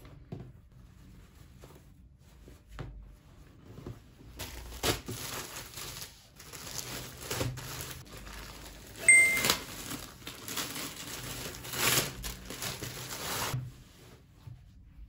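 Clear plastic garment bag crinkling as it is handled, a dense crackle with several sharper loud rustles, starting about four seconds in and stopping shortly before the end. Before it, only faint soft rustling.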